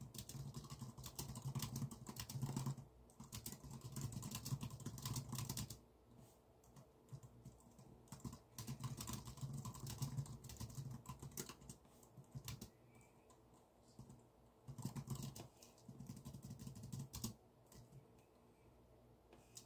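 Typing on a computer keyboard: a fast, dense run of keystrokes for about the first six seconds, then shorter spurts of typing broken by pauses.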